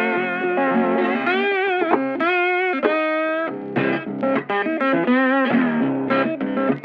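Music led by an electric guitar playing a slow melody of held notes with bends and vibrato, cutting off at the end.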